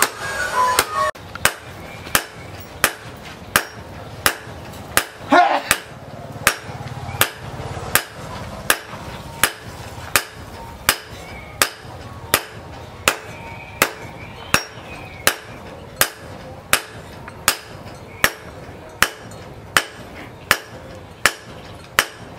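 Hand hammer blows on a red-hot steel knife blade resting on a steel post anvil: sharp metal-on-metal strikes in a steady rhythm of about one and a half a second, as the blade is forged to shape.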